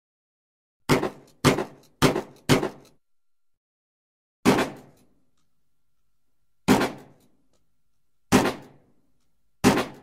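Shotgun sound effects: eight sharp, short hits, four in quick succession about half a second apart, then four more spaced a couple of seconds apart, each dying away within half a second.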